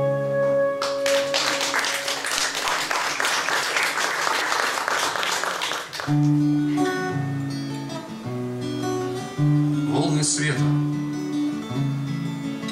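Acoustic guitar notes ringing out, then audience applause for about five seconds. After that the acoustic guitar, played through a microphone, starts a fingerpicked passage of low notes.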